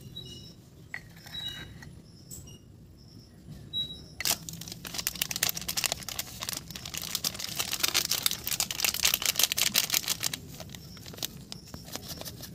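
Plastic spice sachet crinkling and crackling as it is handled and shaken out over a steel bowl, a dense run of crackles starting about four seconds in and stopping about two seconds before the end.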